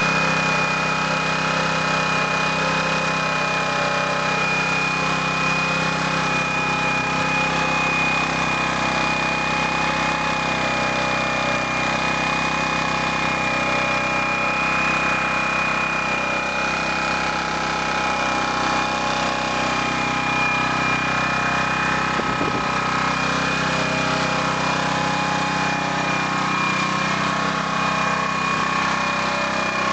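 DuroMax MX1500 portable generator's small engine idling steadily with no load, a constant high whine over the engine note.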